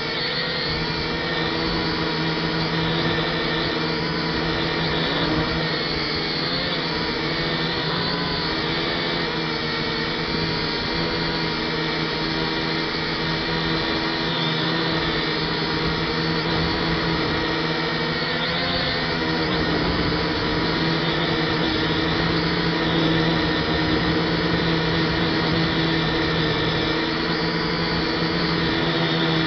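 Motors and propellers of a DFD F183DH quadcopter, heard from its onboard camera, whining steadily in flight with a noisy low rumble underneath. The pitch wavers now and then as the motor speeds change.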